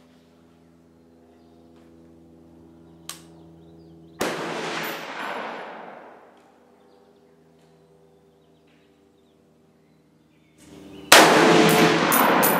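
Two shots from a 6.8 SPC AR-pattern hunting rifle, about seven seconds apart. Each is a sharp crack followed by a long rumble of echo that dies away over a second or two, and the second is the louder.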